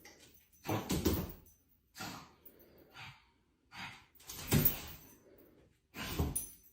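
A dog breathing heavily: about six short, breathy exhalations at uneven intervals.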